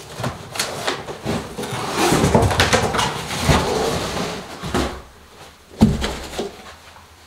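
A large cardboard shipping box is dragged up and off an inner box, with cardboard scraping and rustling against cardboard for several seconds. One sharp knock comes about six seconds in as the empty box is handled.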